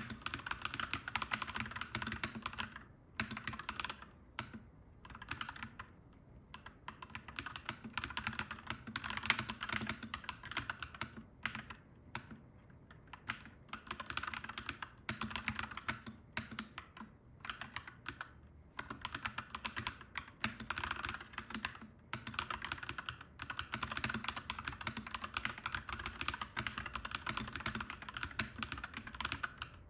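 Clacky mechanical keyboard being typed on in fast runs of keystrokes, broken by short pauses every few seconds.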